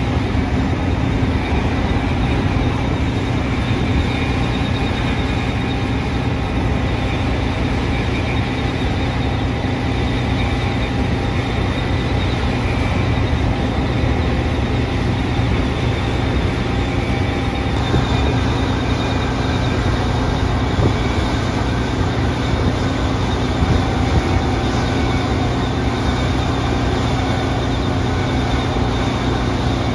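New Holland CR11 rotary combine running steadily while harvesting wheat: engine and threshing machinery making a continuous, even machine noise with several steady tones.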